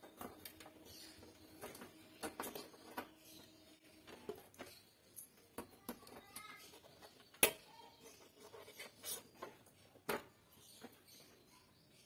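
Faint, irregular clicks and taps of hands handling the wires, connectors and metal fittings of a built-in gas hob under repair, with one sharper click about seven seconds in and another about ten seconds in.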